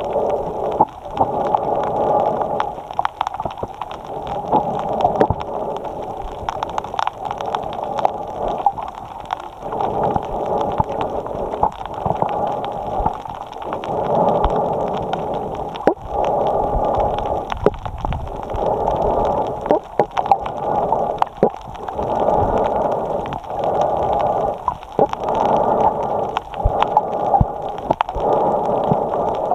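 A snorkeler breathing in and out through a snorkel, heard close up through a camera mounted on the snorkel: a steady rhythm of breaths, each a second or two long, with scattered small clicks.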